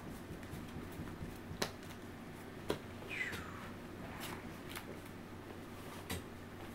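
Trading cards being handled and laid down on a table: a few light taps and slides, with a brief falling squeak about three seconds in.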